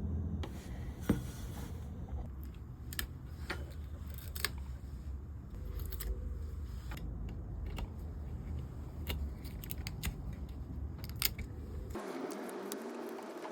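Scattered sharp clicks and small taps, a dozen or so at uneven intervals, over a steady low hum that drops out near the end.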